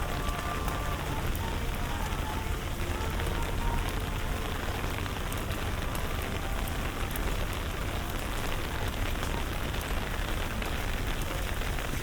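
Steady rain falling on hard surfaces, a dense even patter with many fine crackles, over a low steady rumble.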